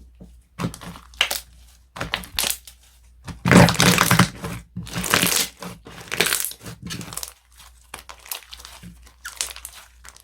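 Hands squishing and pressing slime, which makes irregular crackling, crinkling bursts. The loudest squishes come a little before the middle.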